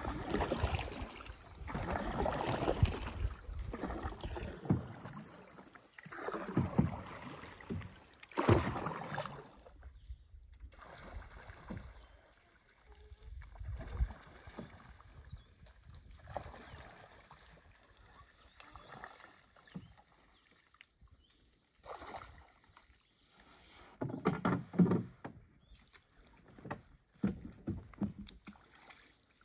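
Canoe paddle strokes swishing and dripping in lake water, loudest in the first third. Later, water splashes and sloshes as a person wades through shallow water beside the canoe.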